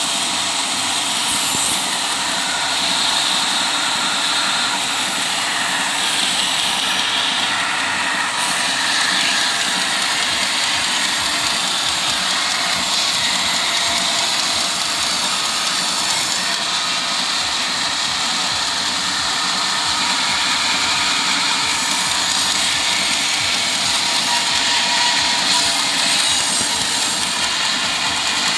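Engine-driven sawmill machinery running steadily, likely sawing teak logs.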